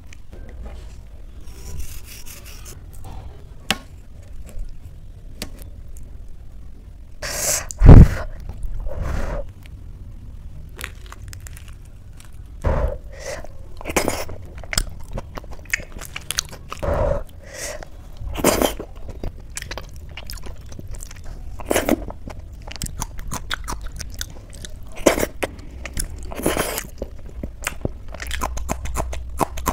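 Close-up eating by hand: soft, wet boiled rice mashed and scooped on a steel plate, with chewing, lip smacks and scrapes, and one loud knock about eight seconds in. Near the end, clicky crunchy bites of a raw green chilli.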